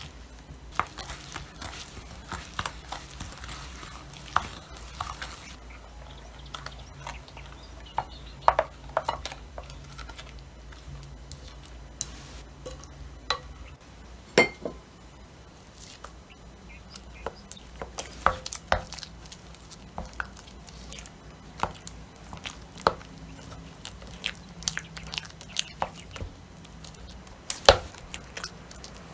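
Irregular clinks and taps of kitchen utensils against dishes, with a low steady hum underneath that stops about halfway through.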